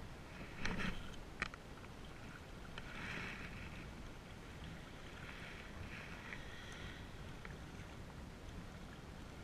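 Steady wind buffeting the microphone, with small waves lapping and splashing against a rocky shoreline. Two sharp clicks come about a second in.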